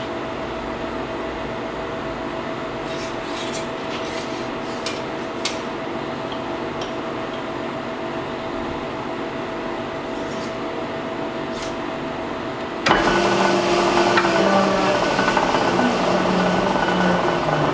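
Powered sheet-metal rolling machine running as a steel strip is fed through its rollers: a steady hum with a few light ticks. About 13 seconds in it suddenly gets louder, and its hum slides down in pitch over the last few seconds.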